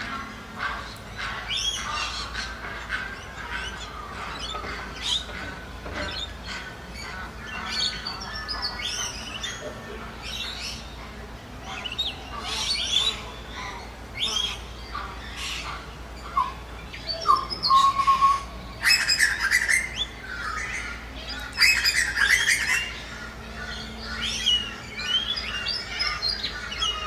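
Birds calling, ducks among them: a dense run of short chirps and squawks, with louder bursts of squawking about two-thirds of the way in.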